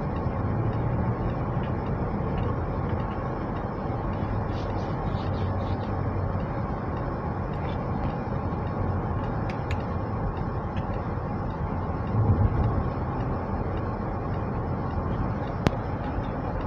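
Steady road and engine noise inside a car cruising on a highway, with a brief louder low rumble about twelve seconds in and a single sharp click near the end.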